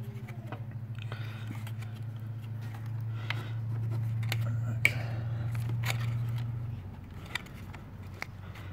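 Sharp metal clicks and scrapes of a ring spanner working on a car battery's positive terminal clamp, which is stuck tight. Under them runs a steady low hum that stops suddenly about seven seconds in.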